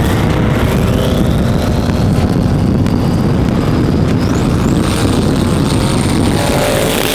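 Jeep Grand Cherokee engine at full throttle, accelerating hard, with a high whine that climbs in pitch as the revs rise. A second, higher whine climbs about five seconds in and then holds.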